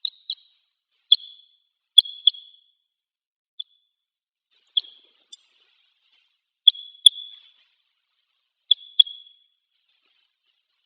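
Red crossbill giving its short, sharp 'kip' calls, about a dozen in all, mostly in quick pairs with pauses of a second or more between them.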